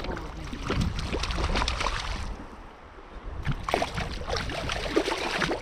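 A hooked grayling thrashing and splashing at the water's surface as it is reeled in, in two bouts with a short lull between, over the steady low rush of the river.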